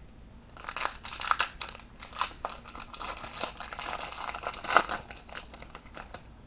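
A baseball card pack wrapper being torn open and crinkled in the hands, a run of crackles with one loudest about five seconds in.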